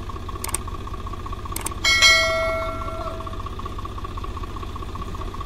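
A tractor engine running steadily, with a couple of light clicks and then, about two seconds in, a single metallic strike that rings out like a bell and fades over a second or so.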